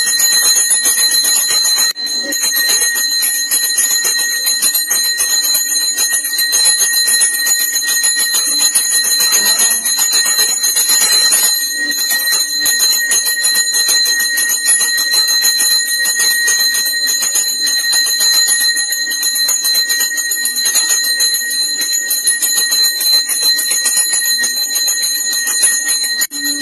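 Puja bell rung continuously with rapid, even strikes, its high ring holding steady.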